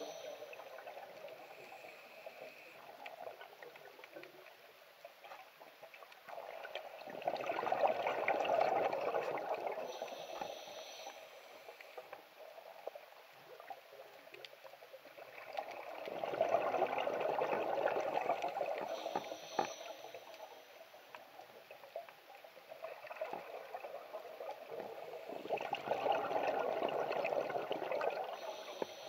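A scuba diver breathing through a regulator underwater: three long rushes of exhaled bubbles about nine seconds apart, with a softer hiss of inhaling between them.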